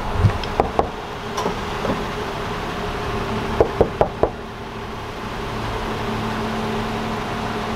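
A fist knocking on a locked car door: a few lighter knocks, then four quick, sharp raps about three and a half seconds in, over a steady hum.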